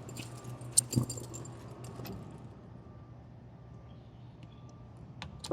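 Steady low hum of the running vending machine, with a few sharp clicks and a knock about a second in and again near the end as the machine is handled.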